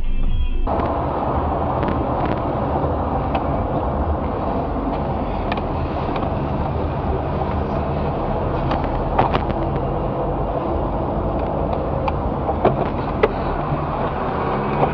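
Car driving: steady engine and road noise, with a few short sharp clicks or knocks in the second half.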